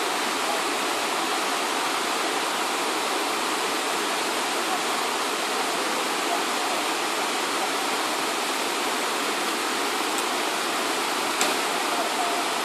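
Rushing water of a river's cascades and waterfall, a steady even hiss that does not change.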